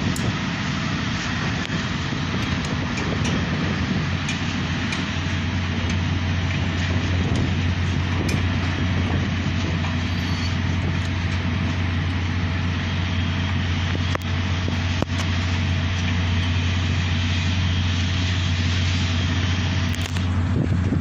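Strong sandstorm wind blowing hard on the microphone as a steady rushing noise, with a steady low hum joining about four seconds in.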